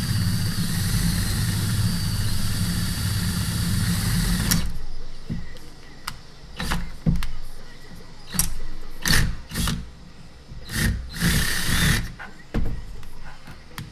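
Cordless drill boring a hole into the side of a Stihl MS201T chainsaw's metal muffler, opening an extra exhaust outlet for a muffler mod. The drill runs steadily for about four and a half seconds, then in short stop-start bursts.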